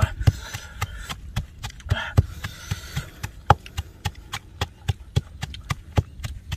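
Wooden pestle pounding chilies in an earthenware mortar: a steady run of dull knocks, about three to four strokes a second.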